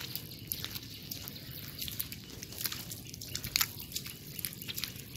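Feet squelching through soft, wet mangrove mud, with irregular wet clicks and pops several times a second.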